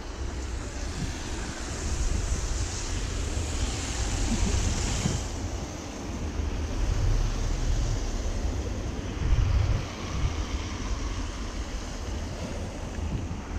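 Gusty wind rumbling on the camera's microphone over a steady hiss, which grows louder for a few seconds near the start.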